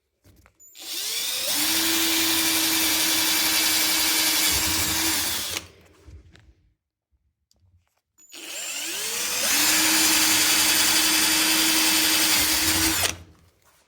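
Electric drill boring through a kitchen cabinet door twice, each run about five seconds long: the motor spins up with a short rising whine, then runs steadily as the bit cuts, and stops abruptly.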